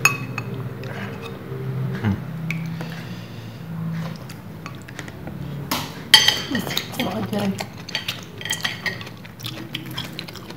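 A spoon clinking and scraping against a ceramic soup bowl while noodles are scooped from tom yum broth. About six seconds in, noodles are slurped and chewed, over a steady low hum.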